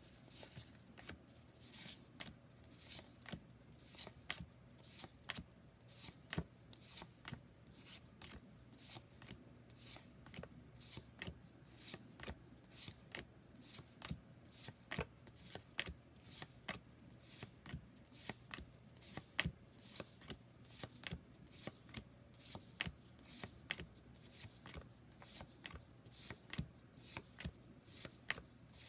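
Oracle cards flipped one at a time, each card giving a short, crisp snap about twice a second in a steady rhythm.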